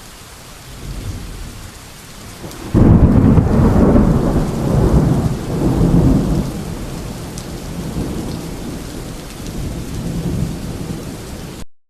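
Rain falling steadily, with a low roll of thunder about a second in and a sudden loud thunderclap a few seconds in that rumbles on and slowly fades. The audio cuts off just before the end.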